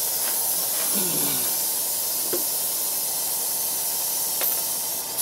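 Steady hiss throughout, with a few faint, sharp clicks from a torque wrench being worked on a rear sway bar link nut.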